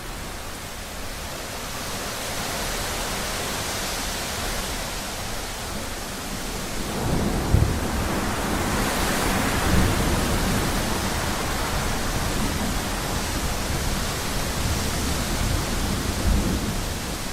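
Steady rain hissing; about seven seconds in, thunder rolls in as a long low rumble, with a few louder claps within it.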